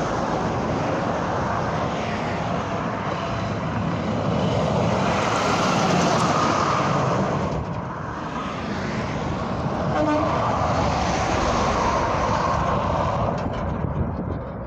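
Highway traffic, including semi trucks, passing at speed: a steady rumble of tyres and engines that swells as vehicles go by, loudest about six seconds in and again around eleven seconds.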